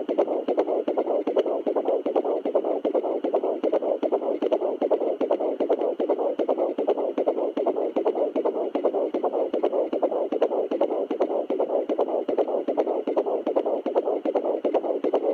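Fetal heartbeat at 12 weeks picked up by a handheld home fetal doppler and played through its speaker: a fast, steady run of pulses.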